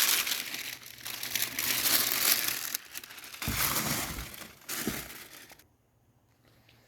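Packaging being crinkled and rustled by hand during an unboxing, in several loud stretches that stop about five and a half seconds in.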